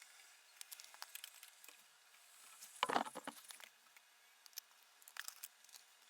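Small clicks and light scraping of a precision screwdriver and screws being worked into the aluminium bottom cover of a MacBook Pro, with a short, denser burst of handling noise about three seconds in.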